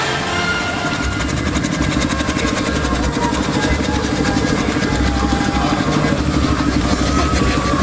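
Steam traction engine running as it drives along, with a quick, even beat over a low rumble. The rumble strengthens about five seconds in as the engine comes closer.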